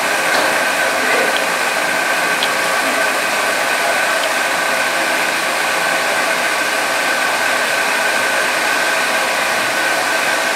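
Steady rushing noise of a lit gas stove burner under a steel wok, with a few steady high tones running through it. There are faint light ticks in the first few seconds.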